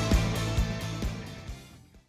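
Background music with a steady beat, fading out to silence near the end.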